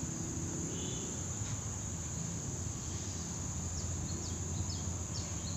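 A steady, high-pitched chorus of crickets or similar insects over a low rumble, with a few short bird chirps near the end.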